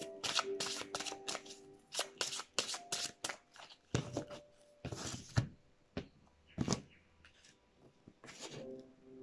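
A deck of cards shuffled by hand: a run of quick riffling, slapping strokes, dense for the first three seconds, then a few more scattered strokes until about seven seconds in.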